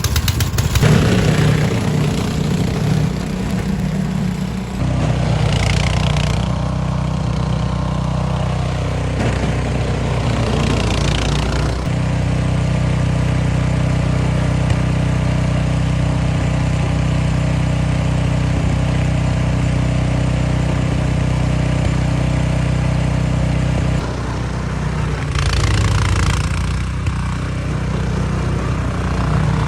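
Toro Power Clear 721E snow blower's 212cc four-stroke OHV engine running steadily, with a few brief rushing surges over it.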